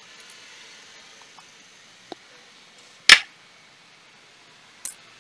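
Sharp clicks of a precision screwdriver and small tablet parts being handled: one loud click about three seconds in, a softer one near the end, and a faint tick at about two seconds, over a faint hiss.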